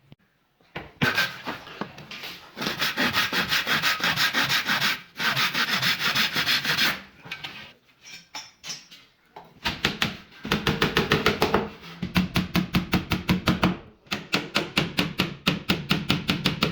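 Hand sanding of wood: sandpaper rubbed in quick back-and-forth strokes, about five or six a second, in several runs with short pauses between them.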